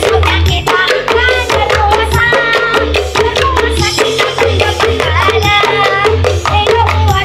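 Loud dance song played through a portable sound-system rig: a singing voice over heavy pulsing bass and fast drumming.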